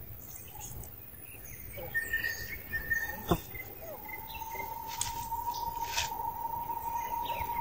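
Birds chirping with short, sharp calls in outdoor background ambience. A steady high tone sets in about halfway through, and there is one sharp click a few seconds in.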